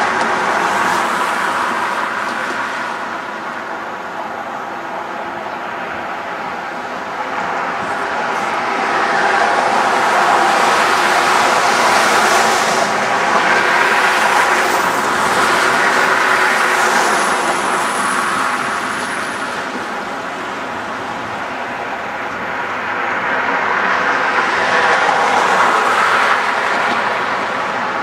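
City street traffic: cars driving past with a continuous rumble and hum, swelling twice as vehicles go by.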